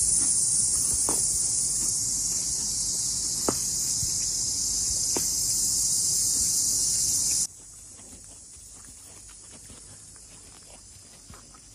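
Steady high-pitched drone of insects, which cuts off abruptly about seven and a half seconds in, leaving a much quieter background with faint ticks.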